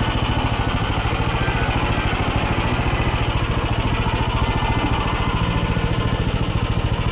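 Engine of an MTZ walk-behind tractor running at a steady, even beat while it pulls a potato planter along the row.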